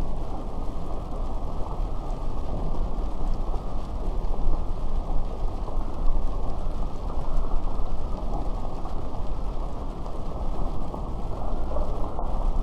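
Steady rain falling, a dense even patter with a dull, muffled tone.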